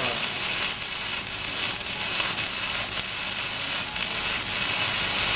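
Electric arc welding: the arc gives a steady crackling hiss with irregular small pops.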